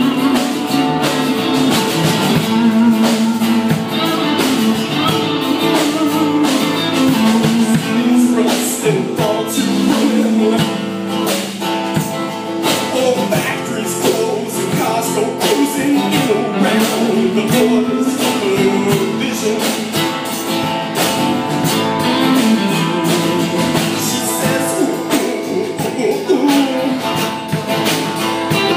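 Live small-band music: a strummed acoustic guitar with an electric bass guitar and a second guitar playing a steady, continuous groove.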